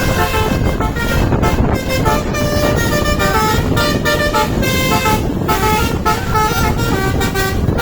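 A bus's basuri telolet horn playing a quick melody, its tones stepping from note to note several times a second, over the low rumble of the road and engine.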